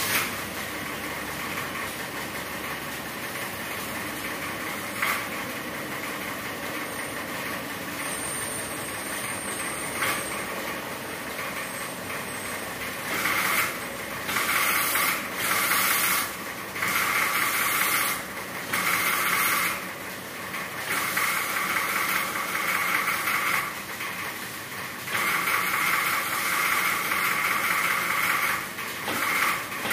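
A steady mechanical hiss, then from about halfway through a high-pressure hose hissing in a run of on-off bursts, each from half a second to a few seconds long.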